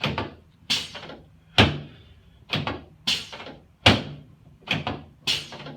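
Repeated sharp thuds from a chiropractic treatment table under quick thrusts to the ribs, about eight of them in a row, roughly one every 0.7 seconds.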